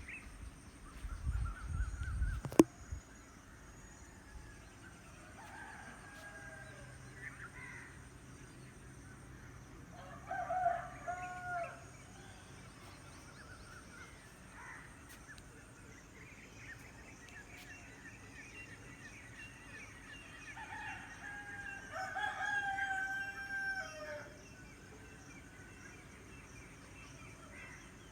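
Roosters crowing in the distance, several separate crows, with a longer crow near the end. In the first couple of seconds there is a low rumble and one sharp click.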